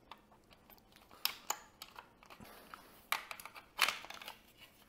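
Plastic snap clips of a smoke detector's housing clicking and creaking as a screwdriver pries the case apart. A string of sharp clicks and scrapes, with the loudest snaps about three and four seconds in.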